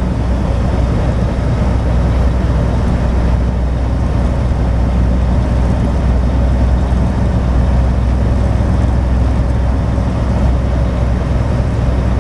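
Semi truck heard from inside the cab while cruising at highway speed: a steady low engine drone with road and tyre noise and no change throughout.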